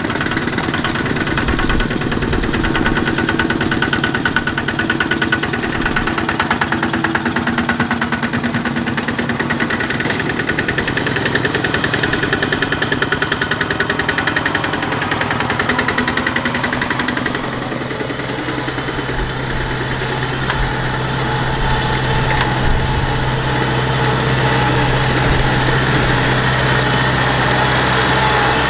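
Single-cylinder diesel engines of two-wheel walking tractors chugging with a fast, even beat as they pull loaded trailers. About two-thirds of the way through, the chugging gives way to a steadier engine drone.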